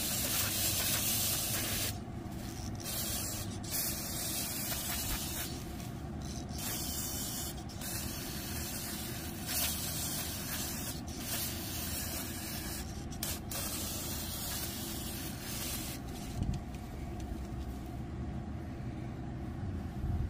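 Aerosol can of Berryman carburetor cleaner spraying through its straw nozzle in a run of hissing bursts, each a second or two long, stopping about three-quarters of the way through. A steady low rumble runs underneath.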